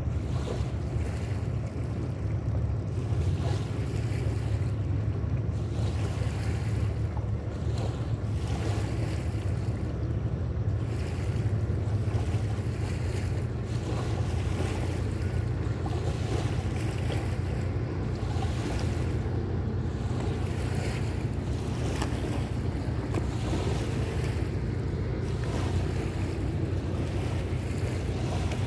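Wind blowing on the microphone at the water's edge: a steady low rumble with a faint hiss above it.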